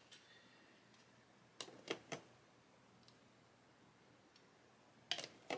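Quiet clicks of small plastic model-kit parts being handled and pressed into place: three close together about a second and a half in, and two more near the end.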